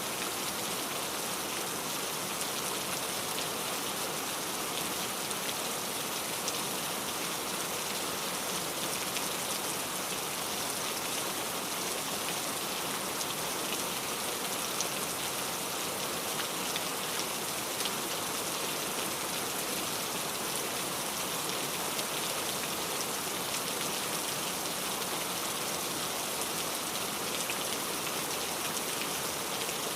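Steady rain falling on a surface, an even hiss of many drops with fine pattering detail throughout.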